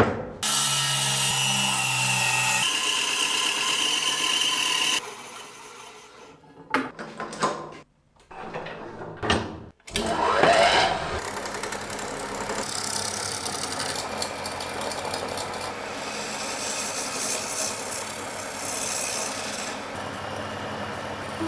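Power tools working wood in a series of short cuts: a tool motor running steadily for about five seconds, a few brief handling knocks, then a long stretch of a tool cutting into wood.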